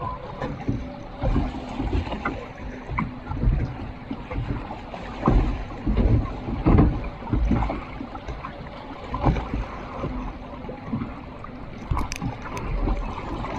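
Log flume ride boat moving along its water channel: water sloshing and rushing around the boat, with irregular low thumps and rumble.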